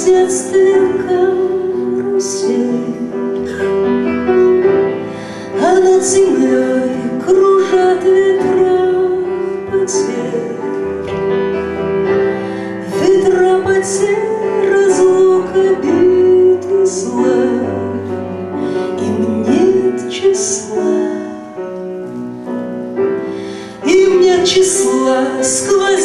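A woman singing in Russian, accompanied by a grand piano.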